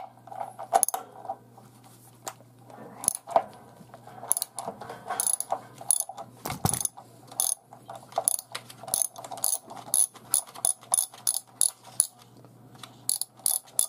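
Socket ratchet clicking in short back-and-forth strokes as it unscrews a water heater anode rod by its 27 mm hex head, counterclockwise, the nut already broken loose. The clicks come in irregular runs of a few at a time.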